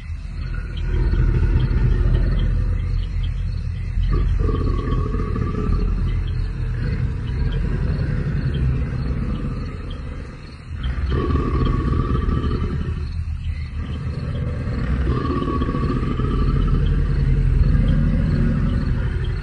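Sound-designed Spinosaurus call: deep, rumbling growls and roars in long phrases, with a brief break about eleven seconds in.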